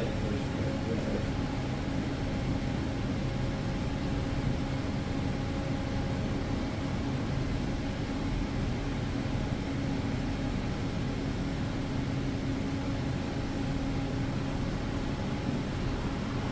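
Steady mechanical hum with an even hiss, a machine running continuously with a few steady low tones in it.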